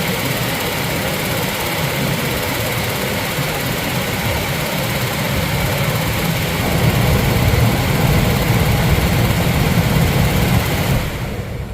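A machine running steadily and loudly, with a low hum under a wide noise. It gets a little louder about seven seconds in and drops away sharply near the end.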